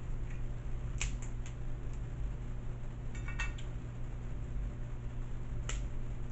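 Eating seafood with the fingers: a few sharp clicks about a second in, a short crackle a little past the middle and one more click near the end, as crab legs and fried calamari are picked apart and chewed, over a steady low hum.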